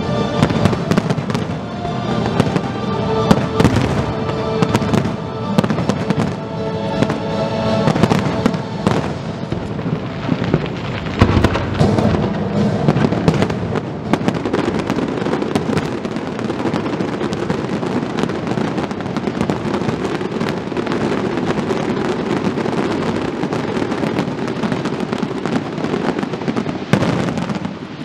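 Aerial firework shells bursting in quick succession, with loud bangs over show music in the first several seconds. From about ten seconds in, a dense, continuous barrage of bangs and crackling takes over.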